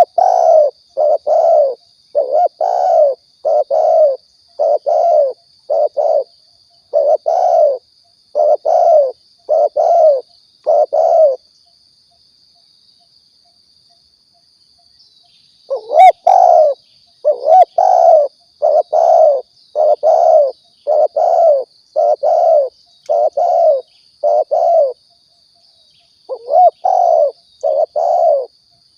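Spotted dove (tekukur) cooing in a long series of short, low coo notes at a steady pace, with a pause of about four seconds midway before the cooing resumes. This is a dove call played as a lure to draw in wild doves.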